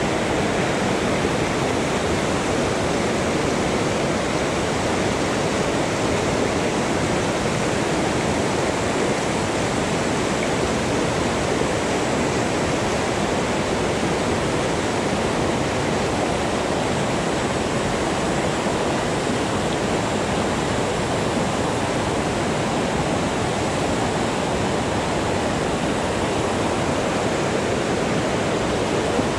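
Whitewater river rapids rushing over rocks: a steady, loud, unbroken rush of water.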